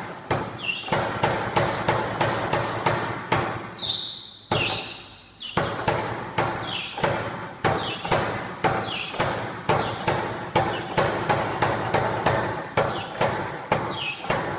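Blacksmith's tyre hammer (wheel-driven power hammer) striking on its anvil in a steady run of blows, about two a second, each with a short metallic ring. The blows pause for about a second, about four seconds in, then resume.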